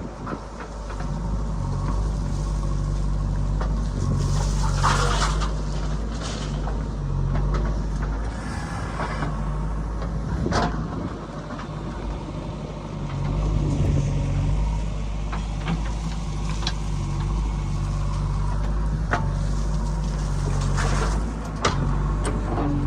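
Heavy diesel engine running steadily, with occasional clanks and knocks from the working machinery.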